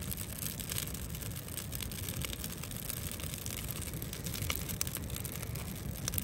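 Wood campfire burning, crackling with frequent small sharp pops over a steady low rumble.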